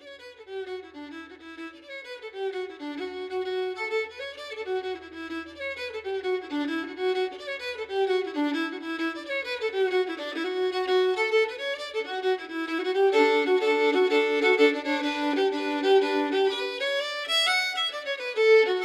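Fiddle music: a lively melody of quick notes running up and down, growing louder through the passage.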